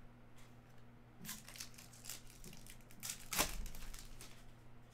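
Foil wrapper of a trading-card pack crinkling in the hands, then torn open with a sharp rip about three and a half seconds in, followed by brief crackling.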